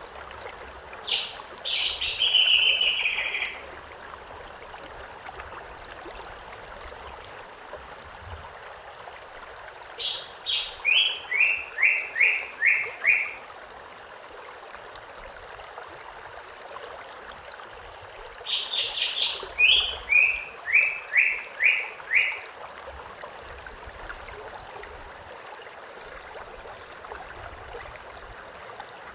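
A songbird sings the same phrase three times, about eight seconds apart: each phrase is a quick high flourish that drops into a run of five or six repeated, slightly falling notes. Under it a river or stream runs with a steady rushing trickle.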